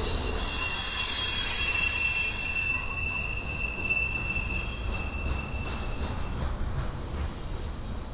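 Freight train cars rolling past with a steady high-pitched wheel squeal over a low rumble. The squeal fades out about six seconds in.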